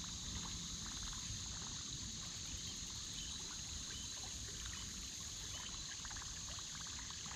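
Steady high-pitched chorus of insects, with faint trickling and lapping of river water around a drifting kayak.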